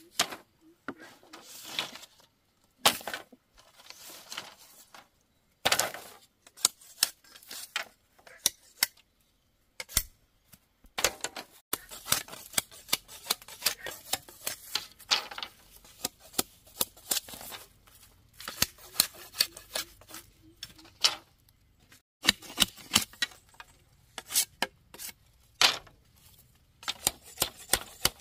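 Irregular sharp clicks and knocks of bamboo being cut and handled, coming in quick runs with short pauses.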